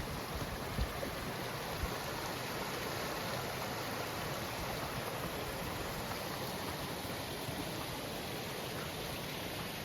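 Steady rush of water, as from a mountain creek or waterfall, with a couple of light wind buffets on the microphone about one and two seconds in.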